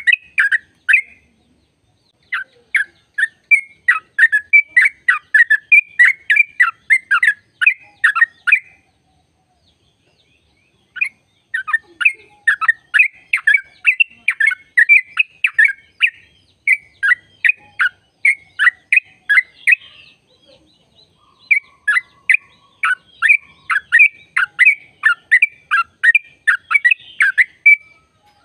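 Yellow-vented bulbul (trucukan) singing long runs of rapid chattering notes, the 'ropel' song. The runs are broken by short pauses about a second in, around nine to eleven seconds in, and again around twenty seconds in.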